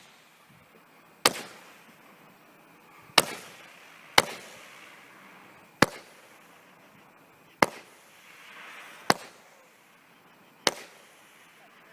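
Consumer firework cake (Wizard's Wrath, 25-shot, 200 g) firing its mine shots one at a time: seven sharp reports at uneven gaps of one to two seconds. A short hiss follows one shot near the two-thirds mark.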